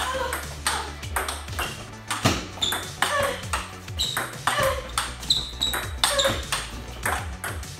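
Fast table tennis rally: the ball clicks sharply off the bats and the table in quick alternation, many hits a second apart or less.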